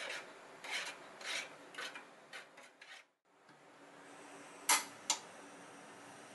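A spoon stirring liquid in a small metal bowl, scraping against the bowl about twice a second. After a short break, two sharp metal clicks from handling the aluminium mess tin on a small grill stove.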